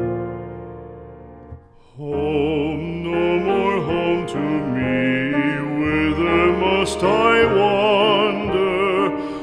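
Background music: a piano chord dies away, then about two seconds in a classical-style singing voice with strong vibrato comes in over piano accompaniment.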